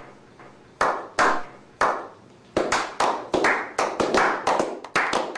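Hand claps: three spaced claps, then a quicker, uneven run of claps from about halfway.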